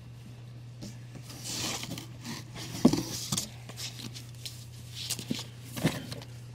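Rustling and handling of comic books and paper while sorting a shipment, with a few short knocks, over a steady low hum.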